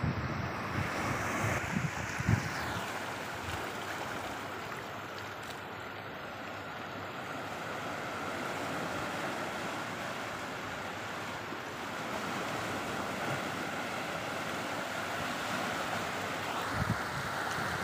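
Sea waves breaking and washing in over a rocky shore, a steady hiss of surf. Wind buffets the microphone in the first couple of seconds and again near the end.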